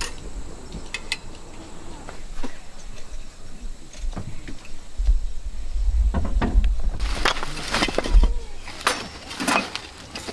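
A few light metal clinks, then wooden firewood blocks knocking and clattering as they are stacked into a folding steel fire pit, with the sharpest knocks close together near the end.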